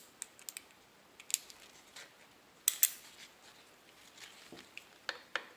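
Metal clips on a rifle sling clicking and clinking as they are handled, a string of sharp irregular clicks with the loudest pair near three seconds in.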